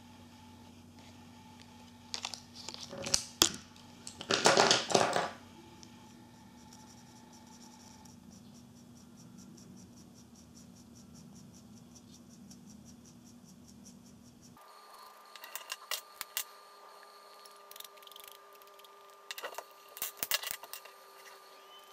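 Plastic marker pens and their caps being handled on a tabletop: two short rustling scrapes near the start, the second the loudest, then scattered light clicks and scratches as the felt tips are worked over a small resin disc.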